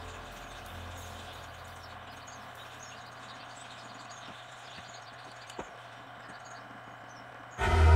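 A quiet gap between background songs: a faint low hum fading out, one small click, then an electronic pop song with a heavy beat starts abruptly near the end.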